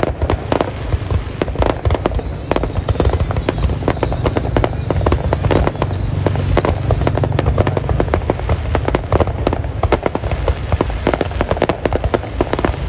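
Fireworks display: a dense, continuous barrage of bangs and crackles, several a second, over a deep rumble.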